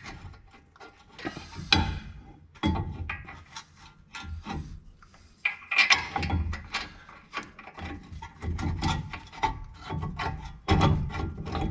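Irregular metal scraping and clicking as a brake caliper bolt is jiggled against the caliper and its bracket by hand, feeling for the thread before it catches.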